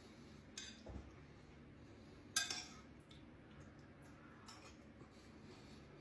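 A spoon clinking against a bowl of soup a few times. The clearest clink comes about two and a half seconds in, with softer taps and a dull knock in the first second.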